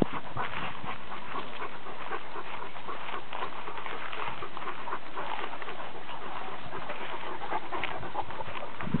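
Great Dane panting with its mouth open.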